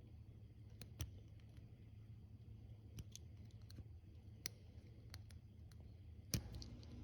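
A few small, sharp clicks, spaced a second or more apart, the loudest about six seconds in, over a faint low hum: a small pick tool prying up the terminal pins and locks inside an ignition coil connector, each pin giving a little pop.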